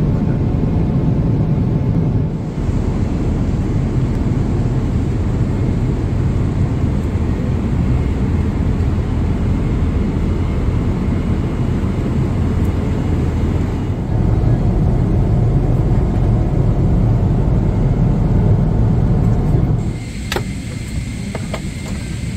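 Steady cabin roar of a Boeing 777-200ER in cruise, engine and airflow noise heard from inside the cabin. It drops somewhat near the end, where a few light clicks sound.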